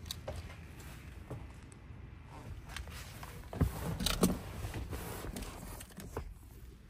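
Handling noise from a handheld camera being moved about, with rustling, scattered light clicks and two louder knocks about three and a half and four seconds in.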